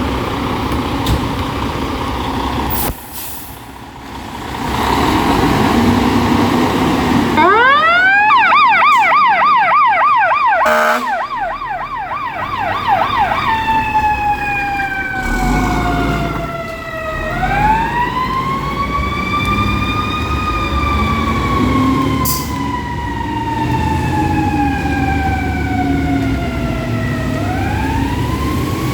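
Fire engine's siren: after several seconds of the truck's engine rumbling, it winds up about seven seconds in, goes into a fast yelp for about five seconds, then changes to a slow wail that climbs quickly and falls slowly, twice over. A short blast of the air horn cuts in during the yelp.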